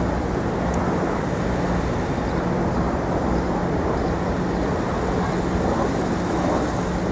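Steady city street noise: a constant rumble of traffic, with a faint steady hum and no distinct events.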